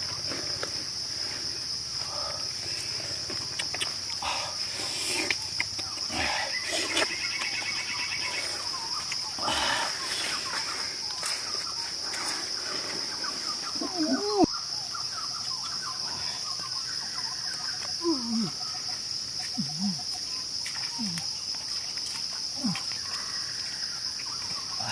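Insects droning steadily at one high pitch, with scattered short bird calls that fall in pitch, mostly in the second half, and occasional knocks and rustles in the first half.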